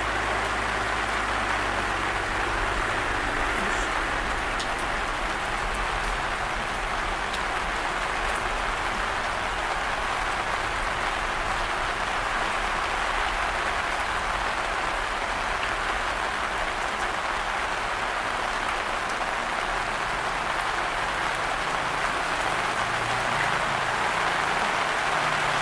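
Heavy rain falling, a steady, even hiss that keeps the same level throughout. A faint low hum under it fades out within the first few seconds.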